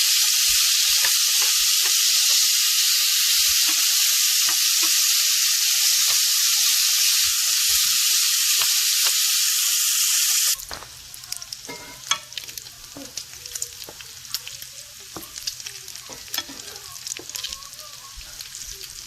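Bacon frying in a pan: a loud, steady sizzle that drops abruptly about ten seconds in to a quieter sizzle with scattered pops and crackles.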